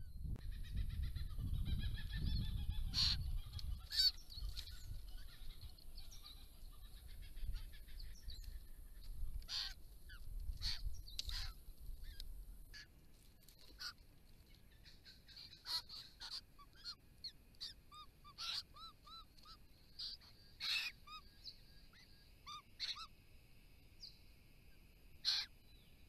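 White-winged choughs calling at close range: nasal, honking calls over a low rumble at first, then short soft calls mixed with sharp clicks in the second half.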